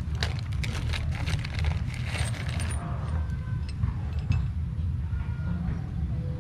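Small metal parts clinking and a plastic packet rustling as hardware and a step drill bit are handled. The clicks are thick in the first three seconds, then sparse, over a steady low rumble.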